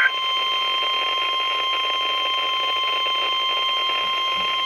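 NOAA Weather Radio 1050 Hz warning alarm tone: a single steady, piercing tone that signals an alert broadcast is about to follow. A brief warbling burst of SAME digital header data ends at the very start.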